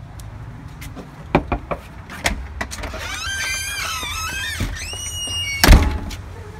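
Wooden panelled door being handled and swung open: a few sharp clicks, then a long wavering hinge squeak, ended by a loud knock near the end.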